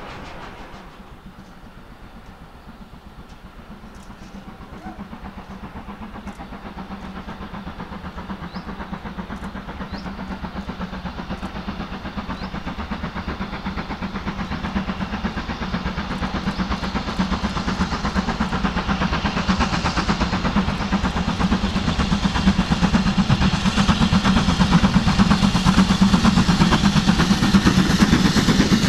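Steam locomotive hauling passenger coaches, its rapid exhaust beat growing steadily louder as it approaches and draws level, with the wheels clattering over the rails near the end.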